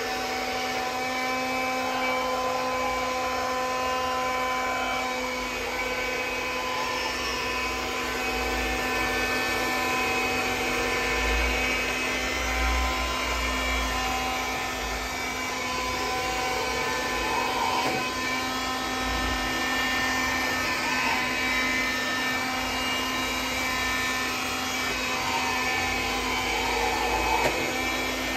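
iRobot Scooba robot floor scrubber running, its vacuum and brush motors making a steady whirring hum with several steady tones.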